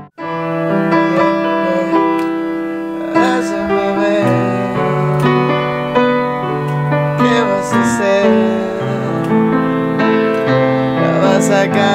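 Piano playing slow, sustained chords that change every second or so.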